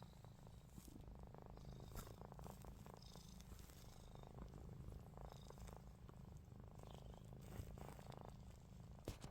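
Domestic cat purring, a faint steady low rumble, with a soft click near the end.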